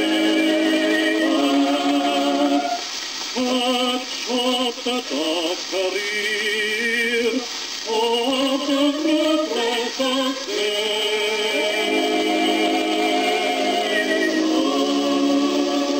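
Old opera vocal record playing on a turntable. A chorus holds sustained chords at the start and again from about two-thirds of the way in. In between, a solo voice sings a line with vibrato. The sound is thin, with no bass, under a steady surface hiss.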